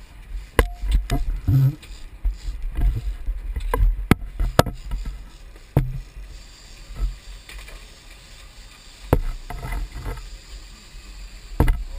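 Steady low rumble of wind and boat noise on a GoPro's microphone, with sharp knocks and thumps at irregular intervals, the loudest about half a second in, around four seconds in and near the end.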